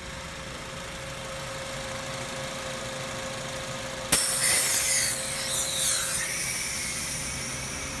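Honda Civic's engine idling steadily; about four seconds in, the recharge hose coupler is pulled off the low-pressure AC service port and refrigerant escapes with a sudden hiss that fades over two or three seconds. Only a small amount of hissing, a sign that little R134a was lost.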